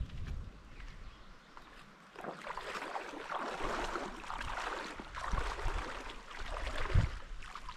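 Small waves lapping and splashing against a rocky lakeshore, coming and going. There is a dull thump about seven seconds in.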